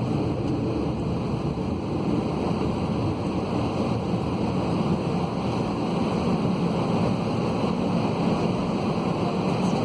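Steady cabin noise of an Airbus A320-211: an even, loud rumble and rush from its CFM56 turbofan engines and the air around the fuselage.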